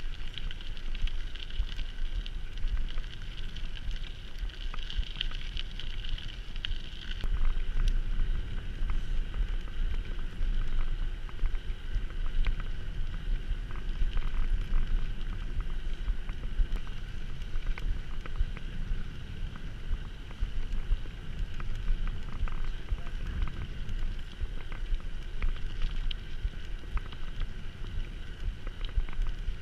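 A mountain bike on the move: wind rumbling on the microphone, with a constant crackle and rattle from the ride.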